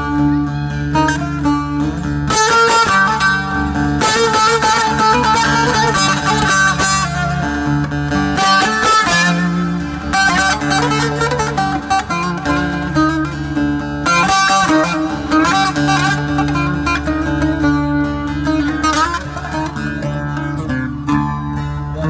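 Bağlama (long-necked saz) picking a quick plucked melody over an electronic keyboard accompaniment with a steady held low drone, all amplified through a PA: the instrumental introduction of a Turkish folk song.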